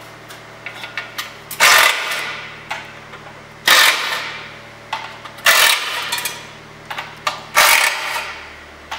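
Cordless drill-driver with a Torx bit spinning out the T25 screws that hold the baffle plate inside a Saab B204 engine's steel sump, in four short bursts about two seconds apart, each starting loud and tailing off, with small clicks between.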